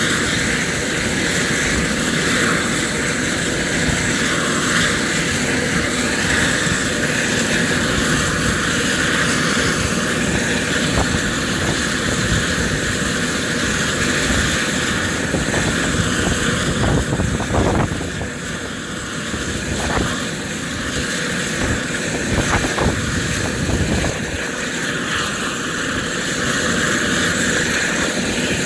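Eurocopter EC130 helicopter running on the ground: a steady turbine whine over a broad rushing rumble, easing off briefly about two-thirds of the way through.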